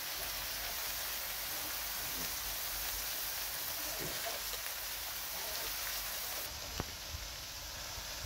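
Steady sizzling of sliced beef and vegetables cooking in a wok, with a light click near the end.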